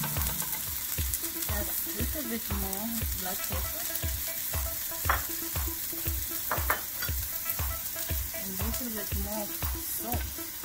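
Lamb pieces sizzling in oil in a stainless steel pot, a steady frying hiss. Background music with a steady beat about twice a second plays over it.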